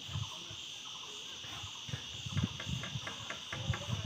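Steady, high-pitched chirring of insects such as crickets.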